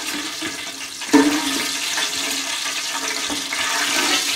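Hot cooking oil in a kadai sizzling steadily as fried curry leaves are lifted out with a perforated ladle, with a steady low hum in the background from about a second in.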